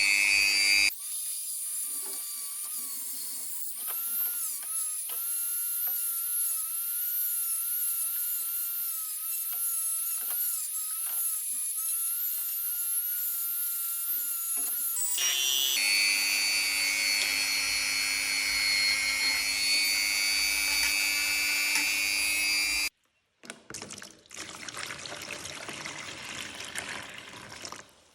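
Small electric power tools running, cut together: a steady motor whine, switching to a higher-pitched whine about a second in, the lower motor hum returning about halfway, then after a sudden cut a rougher noisy sound near the end.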